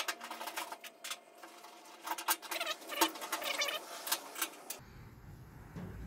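Irregular small metallic clicks, taps and scrapes as tailgate latch bolts are handled and threaded in by hand.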